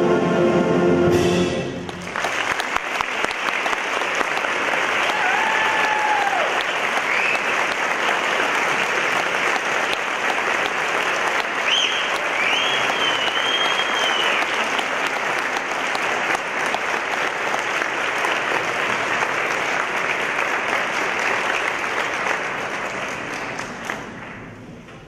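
Concert band's final held chord, cut off about a second and a half in, then the audience applauds steadily with a few whistles, fading out near the end.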